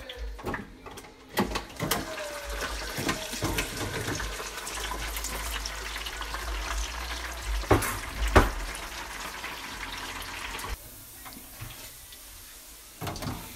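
Pork pieces deep-frying in the oil of an electric deep fryer: a dense crackle of hot fat, with two louder knocks a little past the middle. The crackle drops away suddenly near the end.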